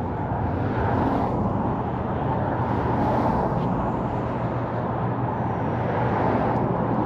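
Steady vehicle noise: a constant low rumble with a steady hum underneath.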